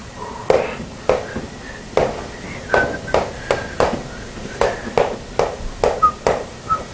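Writing on a classroom board: a run of quick, irregular taps, two or three a second, with a few faint short squeaks between them.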